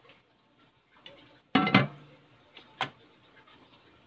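Turbo broiler lid set down onto its glass bowl with a loud clunk about one and a half seconds in, followed about a second later by a single sharp click.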